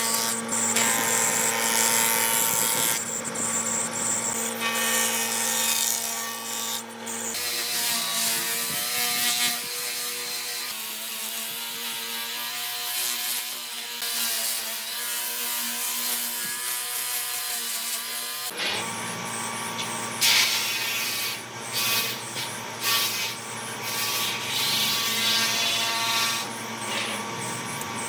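Electric power tools working wood: a motor's steady hum with the rubbing and grinding of the tool on the wood. The sound changes abruptly about seven seconds in and again near eighteen seconds.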